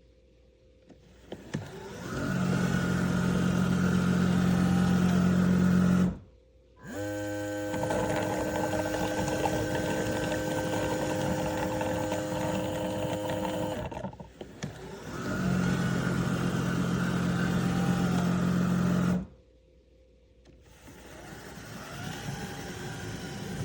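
Roborock S8 Pro Ultra dock washing the mop: its motors and water pump run in stretches of a few seconds with short pauses between, each stretch a steady mechanical hum, one of them starting with a rising whine.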